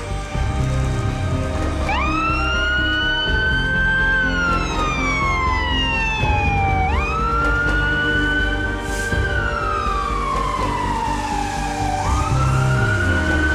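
Fire engine siren wailing over background music. It starts about two seconds in, and each cycle shoots up in pitch, climbs a little more, then falls slowly over about five seconds, for about three sweeps.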